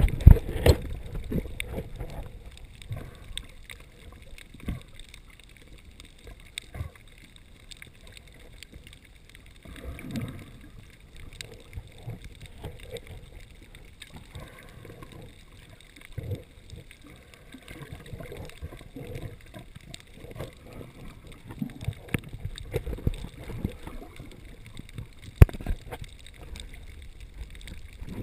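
Underwater sound through a camera's housing: a steady low water rumble with irregular gurgles, sloshes and knocks, and a sharp knock near the end.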